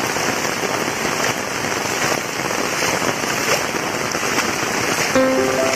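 Heavy rain pelting down, a dense steady hiss with crackling patter. A few notes of music come in near the end.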